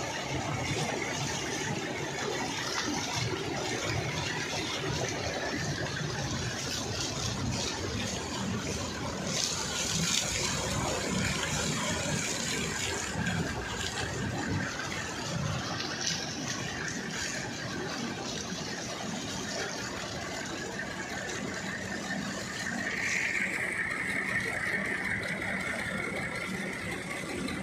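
Motor-driven steel paddle wheel lifting canal water, its blades churning and splashing water steadily into a concrete channel, with a motor running steadily underneath.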